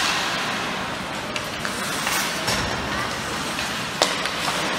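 Steady rushing noise of a game in play in a gym or arena, broken by a few sharp knocks, the sharpest about four seconds in.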